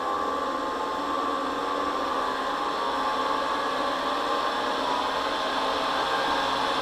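Hairdryer fan motor whirring steadily while it serves as the resistive load for a LiPo battery discharge, its pitch and loudness creeping up as the discharge current ramps up.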